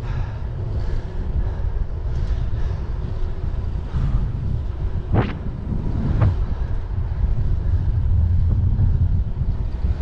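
Wind buffeting the microphone of a moving e-bike, a steady low rumble, with two short sharp clicks or knocks about a second apart near the middle.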